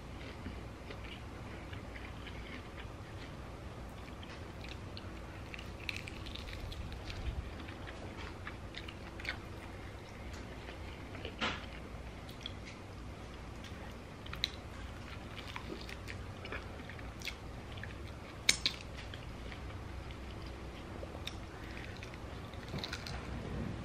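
Chewing and biting on chicken wings, with scattered small clicks and a few sharper snaps, the loudest about halfway through and again about three-quarters through.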